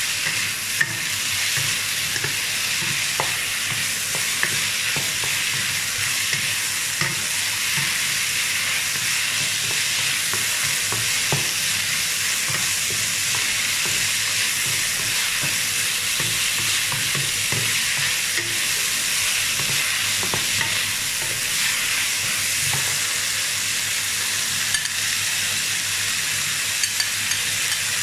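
Diced chicken and baby corn sizzling in a hot wok, stirred with a wooden spatula, with a steady frying hiss and scattered light scrapes and taps of the spatula against the pan.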